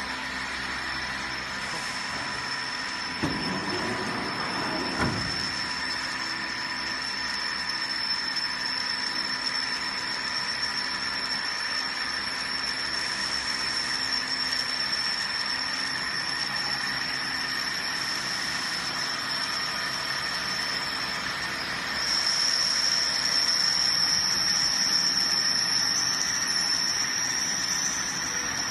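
Diesel injection pump test bench driving a common-rail high-pressure pump under test: a steady machine drone with a high-pitched whine, which grows louder about 22 seconds in. Two short knocks a few seconds in.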